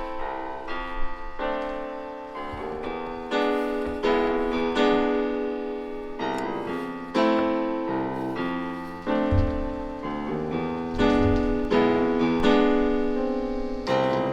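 Background music: a piano playing a slow melody with chords, each note struck and left to fade.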